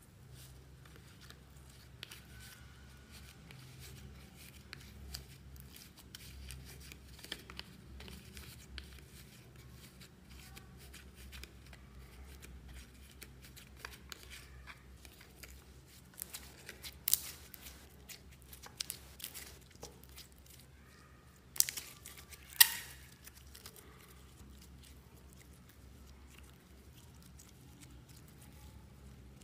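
Clear slime being squeezed, stretched and pressed into loose glitter by hand, giving a run of small sticky crackles and clicks, with a few louder sharp pops about two thirds of the way through.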